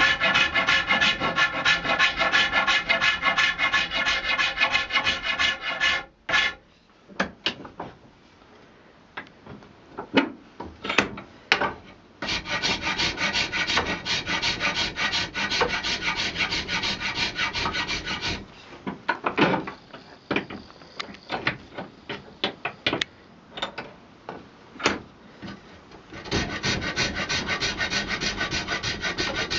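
Hand file worked in quick, rapid strokes over a buffalo horn stick handle held in a vise, in three long spells. Between the spells come scattered knocks and clatter as the tools and the work are handled.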